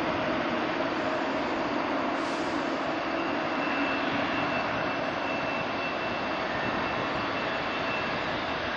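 Boeing 777 freighter's twin GE90 jet engines running as it rolls along the runway: a steady jet rush, with a thin high whine coming in about three seconds in.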